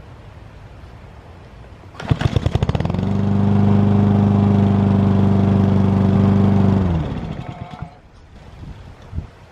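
Honda four-stroke engine on a Toro Super Recycler push mower started about two seconds in, catching at once and running steadily for about four seconds before it is shut off and spins down. The short run is to circulate freshly added oil before checking the level.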